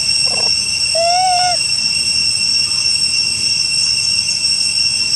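Steady, high-pitched insect chorus droning throughout, with one short call about a second in that rises slightly and then falls.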